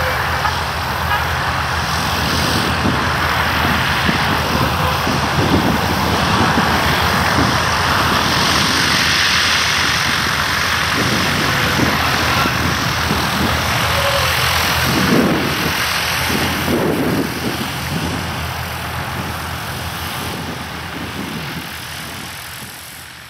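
XtremeAir XA-42 aerobatic plane's six-cylinder Lycoming engine and propeller running at low power as it rolls along the runway: a steady low drone under a broad rush. It fades away over the last few seconds.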